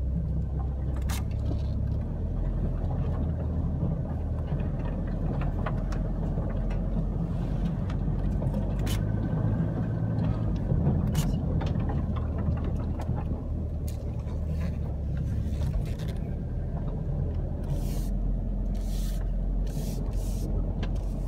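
An off-road vehicle's engine runs low and steady as it drives slowly through tall dry reeds, with stalks ticking and scraping against the body now and then.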